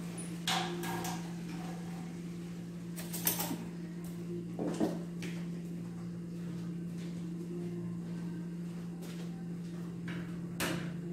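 A steady low hum with a few scattered sharp knocks and clatters, about four in all.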